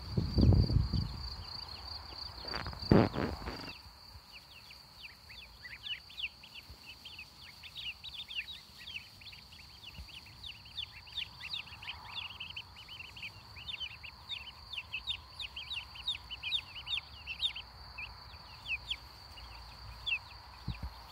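Young poultry chicks peeping: a rapid stream of short, high, falling peeps that thickens after about five seconds and thins toward the end. Under it runs a steady high insect trill, and there are a few thumps and rustles in the first seconds.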